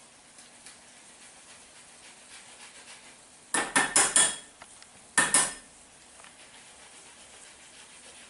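Small flat metal lemon zester-grater knocked against a glass mixing bowl to shake off lemon zest: a quick run of about five sharp clinking knocks, then two more about a second later.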